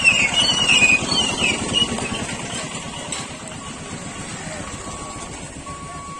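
A motorcycle-drawn cargo van's small engine passes close by, loudest in the first two seconds, with a high wavering squeal. Then a motorcycle engine runs lower and steadier, while a short electronic beep repeats about once a second near the end.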